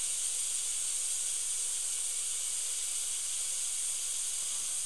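Dental high-speed handpiece running with a fine football-shaped diamond bur, a steady high hiss as the bur traces and contours the marginal ridge of a new composite filling.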